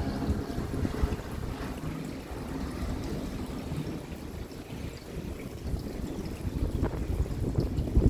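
Rain falling steadily, with runoff water pouring and trickling. The sound is a low, full wash with a few brief louder splashes.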